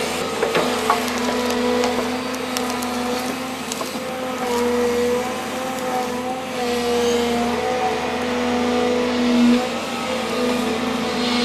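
Volvo excavator's diesel engine running steadily, its pitch wavering slightly, with scattered sharp cracks and snaps of wood as tree roots are torn out of the ground.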